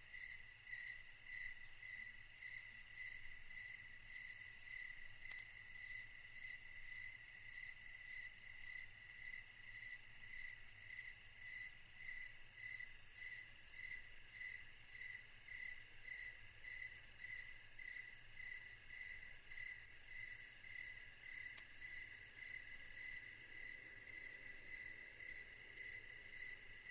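Faint, steady chirping of crickets: a high pulsing trill repeating about two to three times a second, and nothing else.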